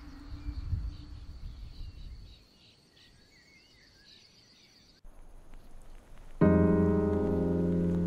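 Faint bird chirps and short warbles over a low rumble, then an abrupt cut, and about six and a half seconds in, piano music starts loudly with sustained notes.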